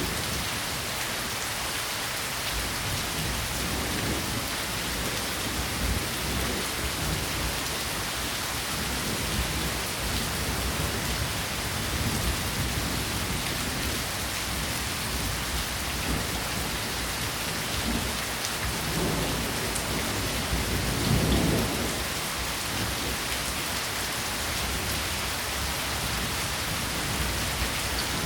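Steady rain falling, an even hiss, with a low rumble that swells briefly about three-quarters of the way in.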